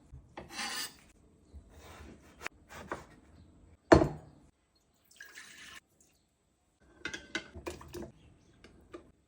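Kitchen food-prep sounds: one hard knife chop on a cutting board about four seconds in, among light clicks, drips and short splashes of water.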